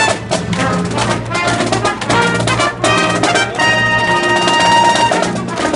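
Brass-led march music with drum beats, playing for a toy-soldier parade unit.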